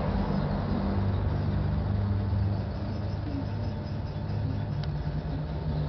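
A steady low mechanical hum, with one faint tick about five seconds in.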